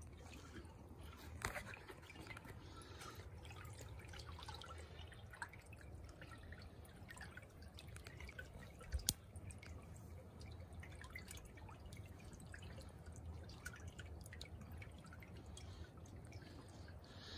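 Faint water dripping and trickling, with many small scattered ticks and two louder clicks, about a second and a half in and about nine seconds in.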